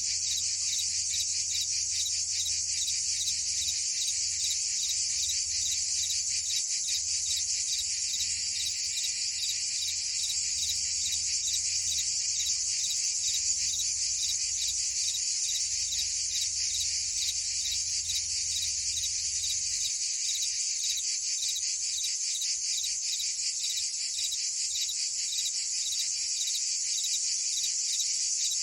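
A chorus of crickets and cicadas: a steady, high-pitched, rapidly pulsing trill. A faint low hum underneath stops about two-thirds of the way through.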